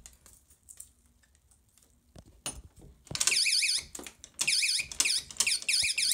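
A few faint clicks, then a magnetic door-entry alarm sensor sets off a loud, shrill siren that warbles rapidly up and down about three seconds in, as the door moves and the magnet pulls away from the sensor. It cuts out briefly a couple of times, then sounds steadily.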